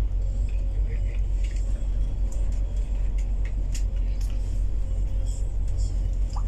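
Steady low rumble of a bus cruising at highway speed, heard from inside the cabin: engine and tyre noise running on evenly.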